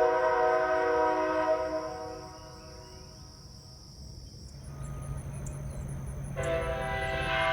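Nathan Airchime K5H five-chime air train horn sounding its chord (bells 1, 2, 3, 4 and 5), cutting off about two seconds in. After a pause filled by insects chirping high and faint and a low hum, the horn sounds again near the end.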